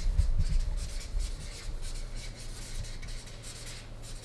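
Felt-tip marker writing on a paper flip chart: a run of short rubbing strokes, with a few low thuds in the first second or so.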